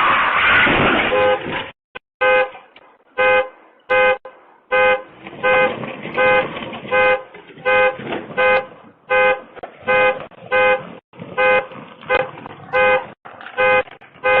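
A loud crash noise for about the first second and a half, then a car alarm honking the horn in short, evenly spaced blasts, about three every two seconds, set off by a car being hit. Heard through a doorbell camera's microphone.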